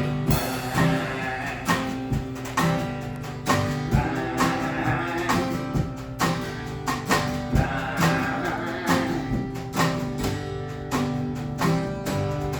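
Acoustic guitar strummed in a steady rhythm during a live performance of a song.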